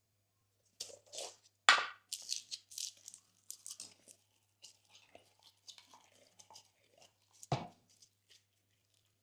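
Glossy slime being worked by hand: an irregular run of sticky crackles and clicks starting almost a second in, with two louder pops, one near two seconds in and one about seven and a half seconds in.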